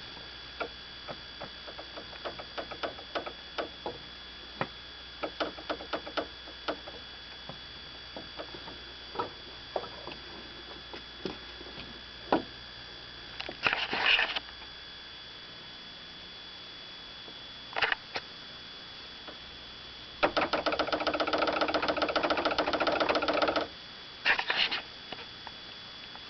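Toyota Avensis T25 suspension-area knocking: scattered light knocks and clicks, short rattling clusters, then a fast rattle lasting about three seconds. The knock comes from a brake line left unsecured at the factory without its rubber grommet, knocking against the body.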